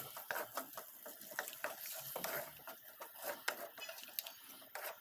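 A spatula stirring a wet onion-tomato masala in a pan with a little water just added, making irregular scrapes and light knocks against the pan over a faint sizzle.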